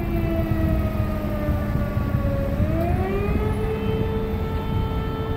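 Civil-defence air-raid siren wailing: its pitch sinks slowly, swings back up about three seconds in, then holds steady. This is the citywide 'W' Hour remembrance signal for the Warsaw Uprising, heard over a low rumble of street traffic.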